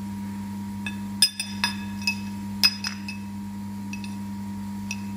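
Galvanized steel sheet strips clinking and ringing as they are handled against each other and the steel work table, with several light strikes from about a second in to about three seconds, over a steady low hum.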